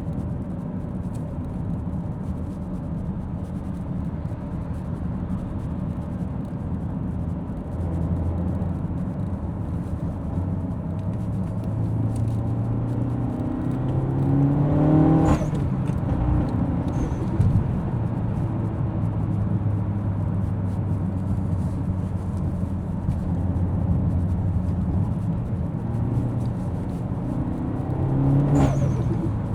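Car engine running while driving over steady road noise. It revs up twice, and each time the pitch drops back sharply, as at a gear change.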